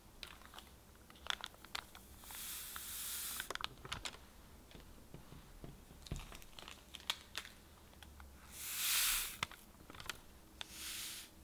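Paper sheets crinkling and tapping as dry yeast, salt and sugar are tipped off them into a glass bowl of bread flour. There are three hissing pours of granules sliding off the paper; the one in the second half is the loudest and longest.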